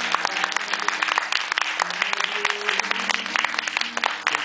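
Audience applauding steadily, dense clapping with instrumental music playing underneath.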